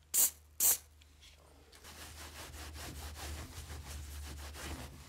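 Two quick squirts from a trigger spray bottle onto the polished steel hatchet head, then a cloth wiping the head in rapid back-and-forth rubbing strokes.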